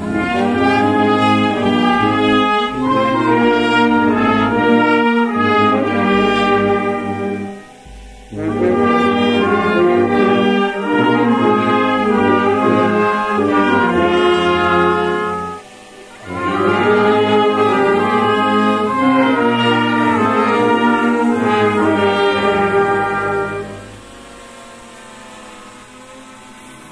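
Brass band with trumpets and saxophones playing a slow processional melody in three phrases of about seven seconds each, with short breaks between them. The music stops about 24 seconds in, leaving a faint steady hum.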